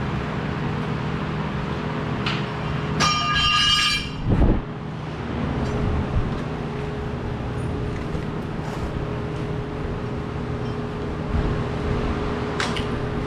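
Steady hum of a fabrication shop with a ringing metallic clank about three seconds in, like steel being knocked or set down, followed by a low thud and a few faint clicks.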